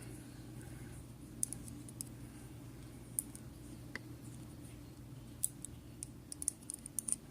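Small metal lock pins being pulled out of a lock's plug by hand, giving scattered light, sharp clicks that come more often near the end, over a faint steady hum.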